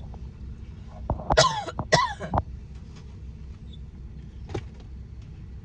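A person coughing a few times, about a second in, over the steady low rumble of a car idling.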